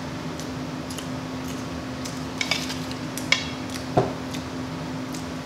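Close-miked eating of a fast-food burger and fries: chewing and mouth smacks, with a few sharp clicks about two and a half, three and a quarter and four seconds in, the last the loudest. A steady low hum runs underneath.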